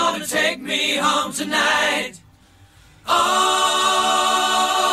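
Vocal music: voices singing long held notes. It drops out for about a second near the middle, then resumes.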